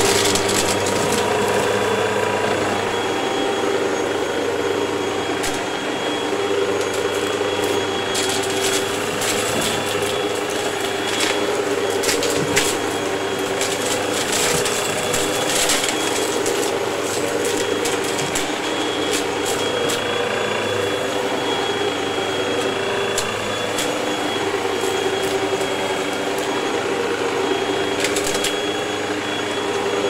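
Hoover upright vacuum cleaner running steadily, its motor drone carrying a couple of steady tones. Scattered sharp clicks and rattles come as bits of test debris, beads and grit, are sucked up through the floor nozzle.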